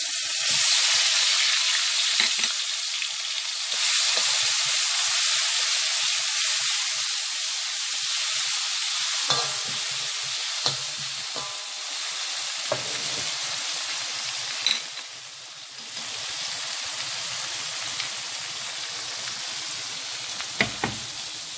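Pounded paste of bird's-eye chillies, belacan, onion and garlic sizzling loudly as it hits hot oil in a wok, being sautéed as the spice base for fried rice. The sizzle starts suddenly and eases slowly, and from about nine seconds in a metal spatula scrapes and knocks against the wok a few times as it is stirred.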